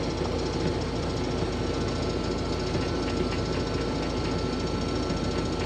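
Case IH 2188 axial-flow combine running steadily while cutting wheat: an even mechanical drone with a faint steady whine.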